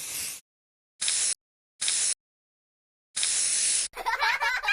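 Spray-paint can hissing in short bursts: one spray cutting off just after the start, then two brief sprays and a longer one, with silence between. Near the end a warbling, fluttering sound begins.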